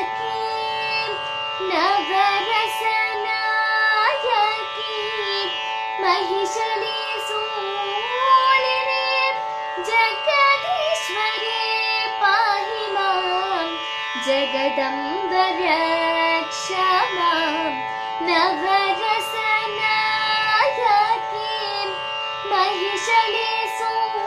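A girl singing a Carnatic thillana in raga Valaji, her voice gliding and bending through ornamented phrases over a steady held drone.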